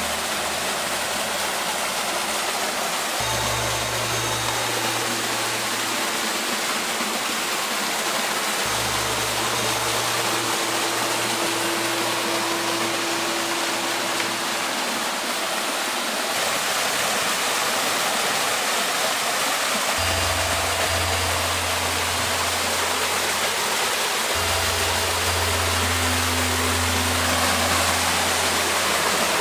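Small waterfall pouring into a rock pool: a steady rushing of water. Background music of long, low held notes comes in and out over it.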